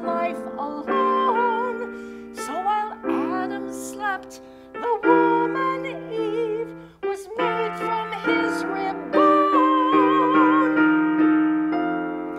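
Yamaha digital piano playing song accompaniment, held chords over a moving bass line, with a melody held with vibrato above it. The music briefly dips about seven seconds in, then carries on.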